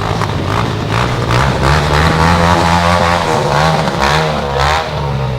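Small ATV engine running and being revved, its pitch rising and falling several times.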